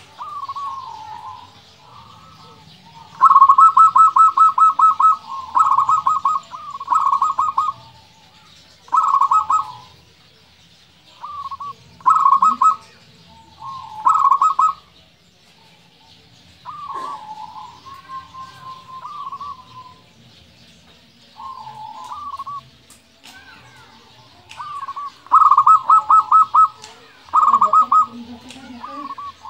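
Zebra dove (perkutut) singing: phrases of rapid staccato cooing notes repeated with short pauses. The loudest, longest phrases come a few seconds in and again near the end.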